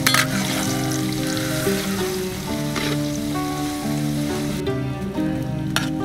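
Shredded ginger deep-frying in hot oil in a steel wok, a dense sizzle, with a metal ladle stirring and knocking against the wok a few times. The sizzle drops away sharply near the end, and background music plays throughout.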